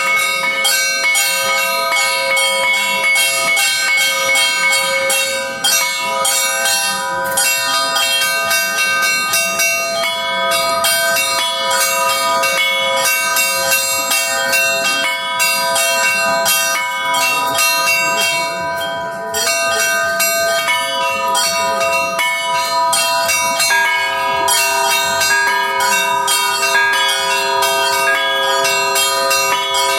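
Church bells rung by hand: quick, repeated strikes on several bells over the long ring of the larger ones. Late on, a deeper bell joins in.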